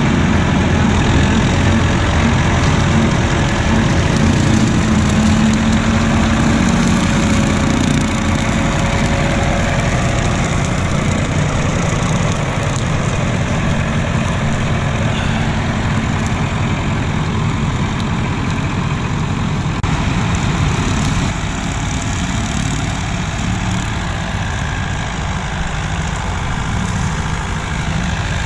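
Old farm tractor's diesel engine running steadily as it pulls away towing a slasher deck, growing a little quieter toward the end as it moves off.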